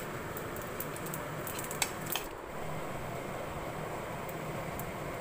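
Metal slotted spatula scraping and clicking against a kadai while spices fry in hot oil with a steady low sizzle; the clicks come thickest in the first two seconds.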